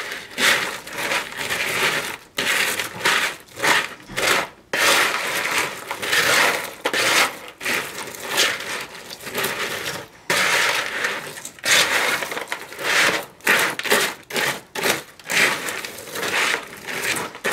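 Chocolate-coated rice Chex cereal being stirred in a large plastic mixing bowl: irregular crunching, rustling scrapes one after another, with a few short breaks.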